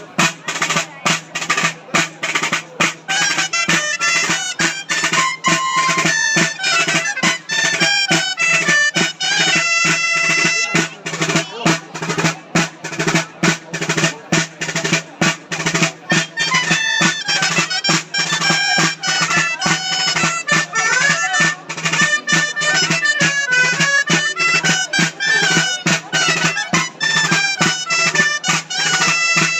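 Dolçaina (Valencian shawm) playing a dance tune over a tabalet drum beating a steady rhythm.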